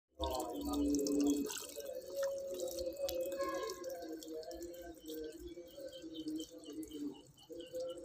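Water trickling and dripping from a small homemade cement-and-styrofoam tabletop waterfall into its shallow pool, running on without a break.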